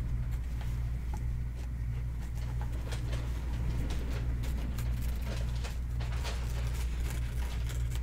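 Small embroidery scissors snipping and stabilizer rustling faintly as cut-away stabilizer is trimmed from the back of an embroidered block, over a steady low hum that pulses slowly.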